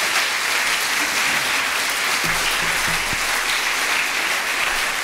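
A large audience applauding, a dense and steady clapping that holds at an even level.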